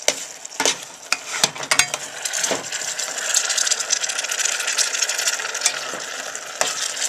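Mince sizzling as it fries in a metal saucepan while a spoon stirs it, clicking and scraping against the pan. The sizzle grows louder from about two and a half seconds in.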